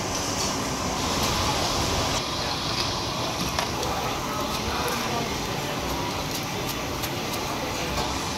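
Steady rushing background din of a street-side noodle stall, with a few light clicks from the cooking utensils near the middle and end.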